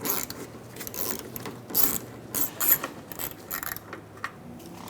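Hand ratchet fitted with a T30 Torx bit clicking in short bursts as it backs out the screw that holds the rear door handle, the clicks dying away near the end.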